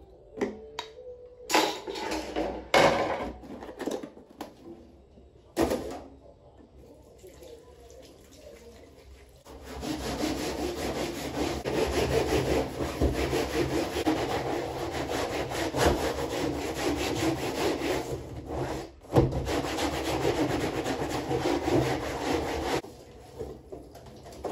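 A few knocks and clatters of things being handled, then, from about ten seconds in, a long stretch of steady scrubbing: a woven drawer-liner mat rubbed clean in a stainless steel kitchen sink, with a short pause near the end.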